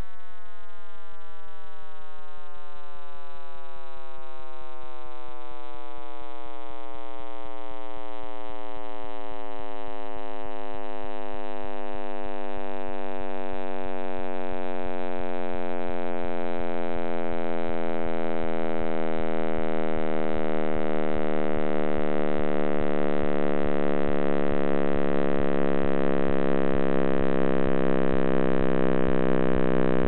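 Computer sonification of the Big Bang, made from cosmic microwave background data: a dense chord of many tones, all sliding slowly downward in pitch and growing slightly louder.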